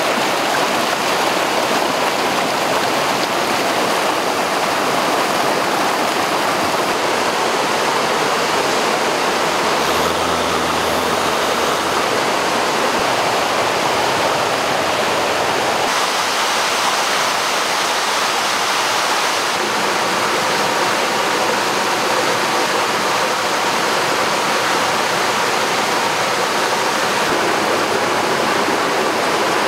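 Fast stream water rushing and splashing over rocks in a small cascade, a steady, loud, unbroken rush of whitewater. Its character shifts slightly about sixteen seconds in.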